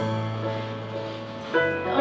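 Live band instrumental: a held chord over a low bass note, moving to a new chord about one and a half seconds in, with no vocal.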